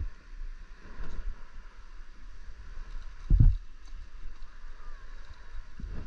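Wind rumbling on a GoPro's microphone over a hiss of shallow water, with one low thump about three and a half seconds in.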